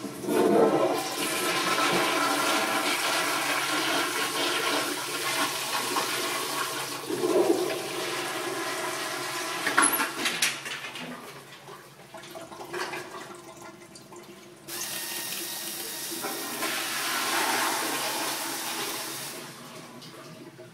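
Sensor-activated automatic toilet flushing: a loud rush of water starts at once and swirls in the bowl, easing after about ten seconds, then a second surge of running water comes near the end.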